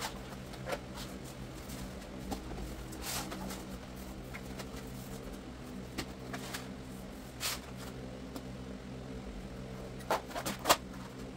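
Vinyl planks being laid by hand into floor adhesive: scattered soft knocks and rubs as planks are slid and pressed down, with a few sharp taps near the end, over a steady low hum.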